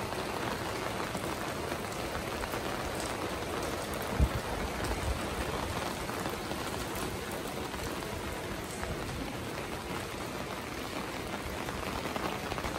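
Steady, even hiss of outdoor background noise, with a soft low thump about four seconds in.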